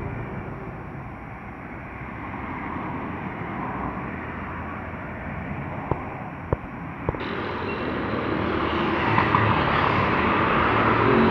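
Airliner engines, a steady rumble that grows louder and brighter over the second half, with three short sharp clicks a little past the middle.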